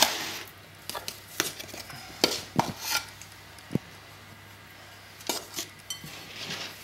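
Hands mixing a soft biscuit dough in a glass mixing bowl while a little flour is added from a plastic scoop, with scattered light knocks and clinks against the bowl.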